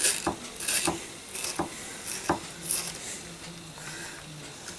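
Kitchen knife chopping onion on a wooden chopping board: irregular knocks of the blade through the onion into the wood, closer together at first and thinning out in the second half.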